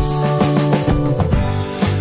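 Background music with a steady beat, pitched instruments playing over regular percussive strikes about twice a second.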